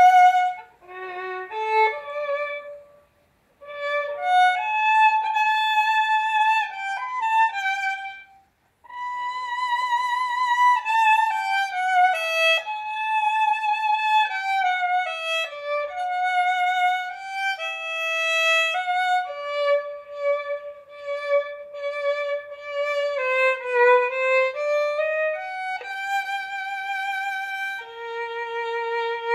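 Solo violin, bowed, playing a melody one note at a time in long held notes with vibrato, with two short breaks about three seconds and about eight and a half seconds in.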